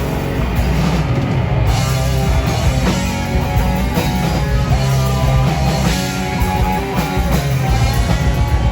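Live band playing loud, dense rock music with guitars and drums.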